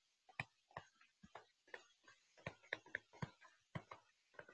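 Faint, irregular taps and clicks of a stylus on a tablet screen during handwriting, several a second.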